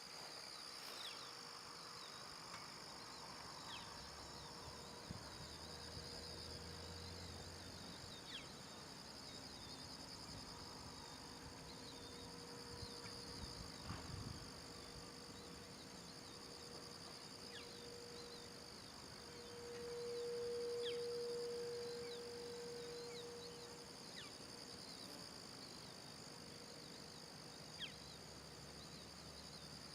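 Distant Whelen 4004 electronic siren sounding a steady alert tone, faint and fading in and out as it rotates, swelling loudest once about two-thirds of the way through. A steady chorus of insects chirrs throughout.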